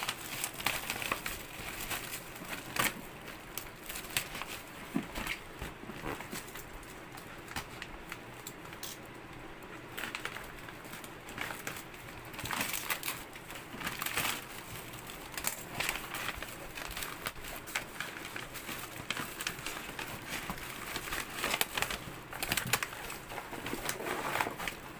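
Clear plastic wrap crinkling and cloth wrapping rustling in irregular bursts as hands strip them off a parcel box.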